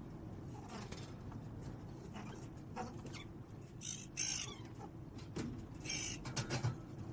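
Several short, harsh bird calls, a couple of them close together near the middle and another about six seconds in, over a steady low hum.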